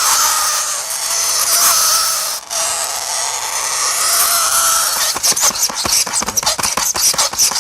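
Loud, harsh mechanical noise, steady at first, breaking into rapid, uneven clattering about five seconds in.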